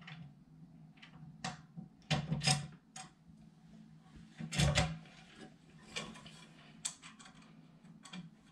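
Small metal hardware being handled: a washer and screw picked up and fitted into a metal frame by hand. It gives scattered clicks and taps, the loudest knock about halfway through, over a faint steady low hum.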